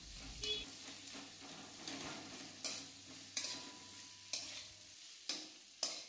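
Sliced onions frying in hot oil in a kadai, being stirred: a faint sizzle with a short scrape or knock of the stirring spoon against the pan about every second.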